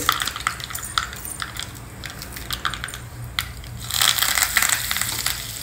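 Mustard seeds crackling and popping in hot coconut oil in a small tempering pan. About four seconds in, fresh curry leaves are dropped into the oil and it breaks into a louder sizzle.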